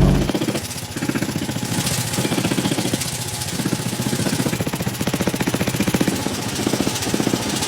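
Power hammer forging steel, striking in a rapid, even run of blows that swells and eases every second or so.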